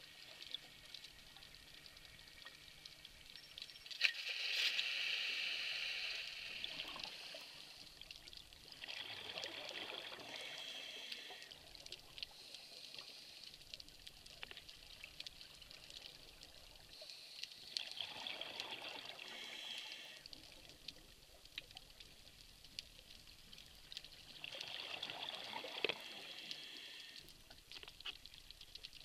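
Scuba regulator exhaust bubbles, heard underwater: four surges of bubbling about three seconds long, roughly seven seconds apart, with fainter hiss between.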